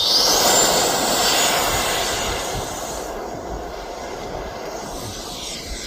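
Electric ducted fan of a Freewing F-16 RC jet spooling up to full throttle with a rising whine, then a steady rushing whine that slowly fades as the model takes off and flies away.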